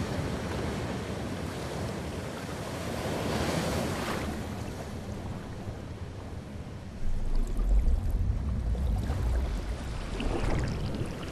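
Ocean surf: waves breaking and water churning, with a hissing wash that swells about three to four seconds in and a deep rumble of heavy water from about seven seconds in.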